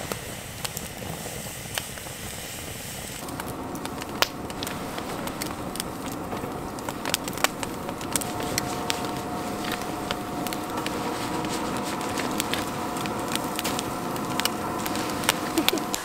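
Wood fire crackling in a fire pit, with sharp pops scattered throughout. From about three seconds in, a steady hum with a few held tones runs behind it.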